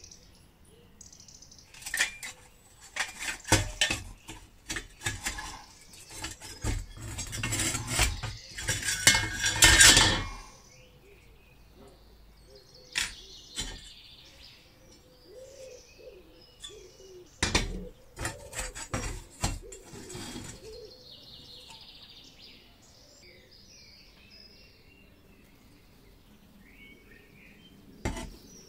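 Rusty sheet-metal parts of an old camping stove clinking, scraping and rattling as the burner is taken apart. There is a busy clatter of knocks and scrapes for about the first ten seconds, loudest near its end, then a few separate knocks as parts are lifted out and set down, one near the end.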